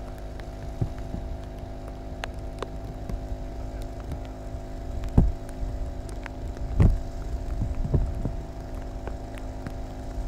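An engine idling steadily at a constant pitch, with a few sharp knocks, the loudest about five and seven seconds in.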